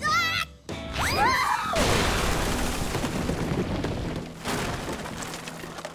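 Cartoon sound effects over background music: a short wavering pitched tone, then a crash about two seconds in, followed by a few seconds of noisy rumble that slowly fades.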